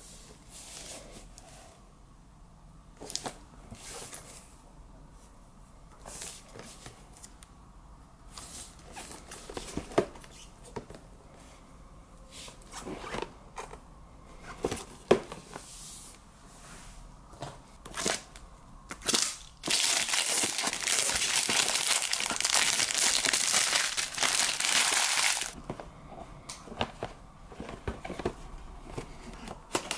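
Hands handling a shrink-wrapped cardboard figure box: scattered taps, clicks and plastic crinkles, then about six seconds of continuous louder crinkling and tearing of the plastic wrap, starting about two-thirds of the way through.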